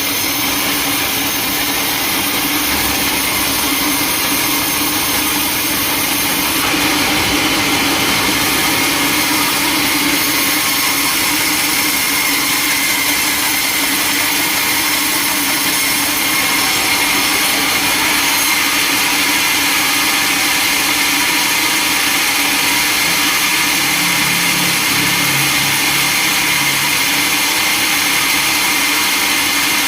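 Sawmill machinery running steadily with a constant whine and hum, getting a little louder and brighter about seven seconds in.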